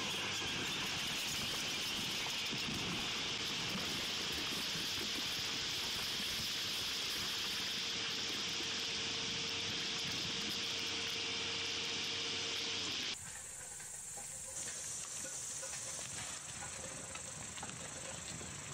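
A compact Caterpillar excavator working under a steady high-pitched hiss. About 13 seconds in, the sound cuts abruptly to a quieter, different background.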